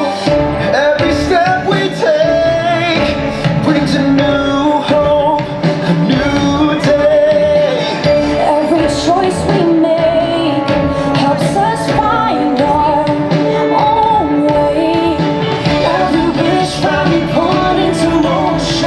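Loud pop-style show song with singing over a full instrumental backing.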